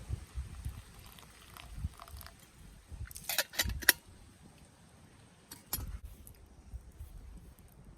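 A few sharp clicks and clinks, bunched about three and a half seconds in and again near six seconds, over low handling thumps.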